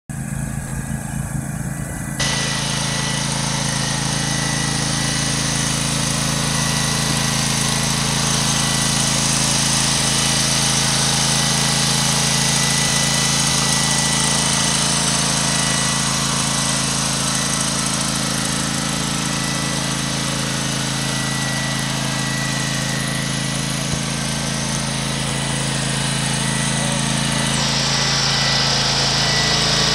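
Husqvarna M-ZT zero-turn mower's Kawasaki V-twin engine running steadily at a constant speed. A brighter whirring hiss joins suddenly about two seconds in.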